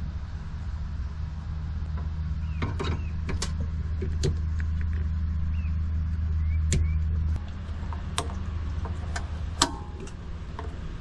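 A low steady motor hum that drops in level about seven seconds in, with scattered sharp clicks and taps and a few short high chirps over it.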